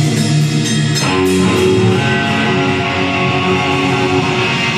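Live rock band playing loud: electric guitar, bass guitar and drum kit together, with several cymbal hits in the first two seconds.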